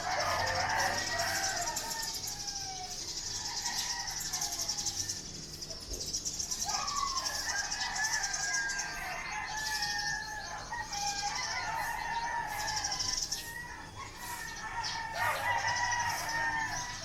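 Roosters crowing, their calls overlapping, in three bouts: right at the start, about seven seconds in, and near the end. Under them runs a steady high-pitched buzzing.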